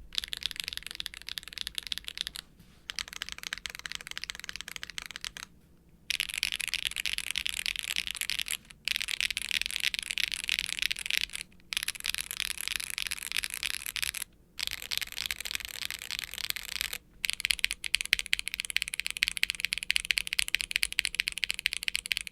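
Fast typing on a Polygon7 mechanical keyboard with HMX KO1 light tactile switches, a polypropylene plate in gasket mount and GMK double-shot ABS keycaps. Keystrokes clatter in dense runs of a few seconds, broken by brief pauses about every three seconds.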